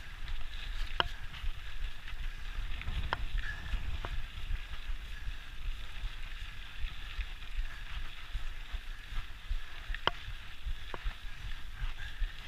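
Mountain bike rolling over a dry dirt trail: tyres crunching on the dirt, low wind noise on the rider's camera microphone, and several sharp ticks and rattles from the bike.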